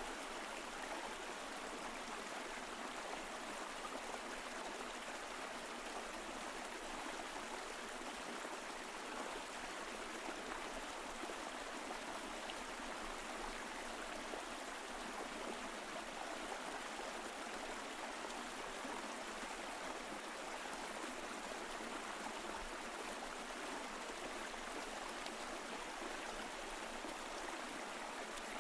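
Mountain stream flowing over rocks: a steady, even rush of water with light gurgling.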